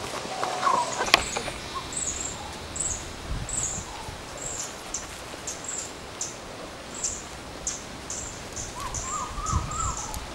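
Outdoor ambience of small animal calls: a short, high-pitched chirp repeats about twice a second. Near the end comes a quick run of up-and-down warbling notes, and there is one sharp click about a second in.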